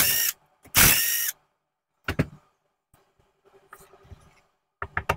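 Cordless driver with a socket spinning out connecting-rod bolts: a short burst at the start, then a run of about half a second. Sharp metallic clicks and clanks of parts and tools being handled follow about two seconds in and again near the end.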